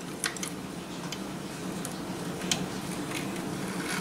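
Light scattered clicks of the bobbin being handled and fitted into a Singer Fashion Mate 360 sewing machine, the sharpest about two and a half seconds in, over a steady low hum.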